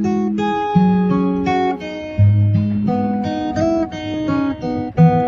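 Plucked acoustic guitar music, notes picked one after another in a light melody over lower bass notes.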